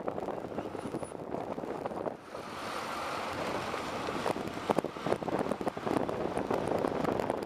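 Inside a moving city bus: steady engine and road noise with frequent small rattles and knocks. About two seconds in, a louder hiss joins the noise.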